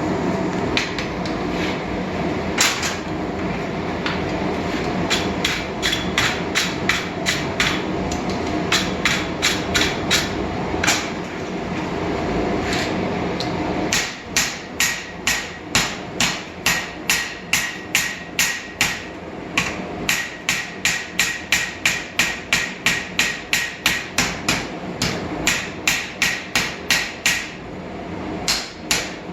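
Hand hammer striking a steel axe head on an anvil, a run of sharp, ringing blows. They fall unevenly at first over a steady rushing noise; about halfway the rush drops away and the blows go on at about two a second.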